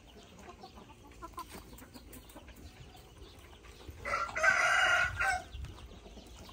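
Domestic rooster crowing once, about four seconds in, over low clucking from backyard chickens.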